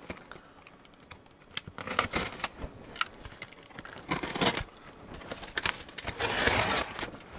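A utility knife slitting the packing tape along the top of a cardboard box: scattered clicks and short scrapes of the blade and box, with a longer scraping rasp about six seconds in.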